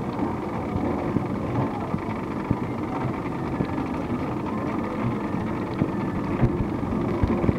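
Pedal-powered cycle monorail car rolling along its elevated rail: a steady rumble with scattered light clicks and knocks from the car and track.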